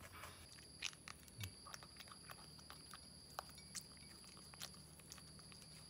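Near silence with faint, scattered small clicks and crunches of an animal chewing food.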